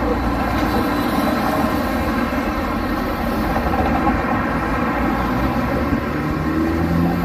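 Street traffic: cars passing in a steady stream of tyre and engine noise, with a nearby engine note rising in pitch near the end as a vehicle accelerates.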